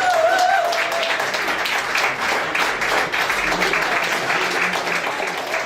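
Audience applauding, many hands clapping steadily, with a brief wavering cheer over it in the first second.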